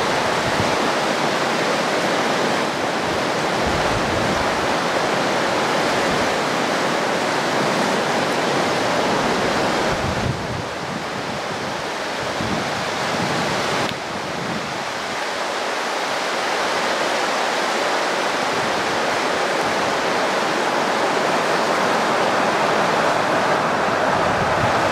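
Rushing river rapids, a steady roar of water that shifts abruptly about ten and fourteen seconds in. Near the end a freight train crossing the high bridge starts to come in under the water sound.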